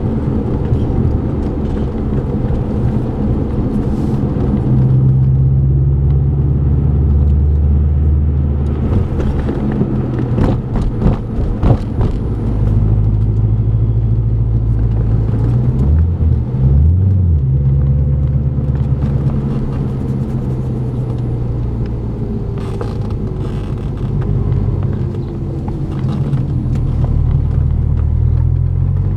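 Car engine running at low speed with road rumble, heard from inside the cabin, its low hum steady. A few sharp knocks come about ten to twelve seconds in, and a brief low wobble a few seconds later.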